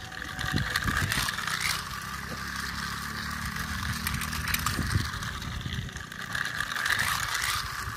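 Battery-powered toy race car lapping a bendable plastic track, its small electric motor and gears whirring steadily.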